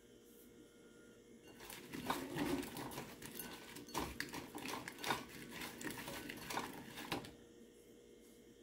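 Cut okra pods tossed by hand in a ceramic bowl to coat them in oil and garlic powder: a rustling shuffle with several knocks of the pods against the bowl. It starts about a second and a half in and stops about a second before the end.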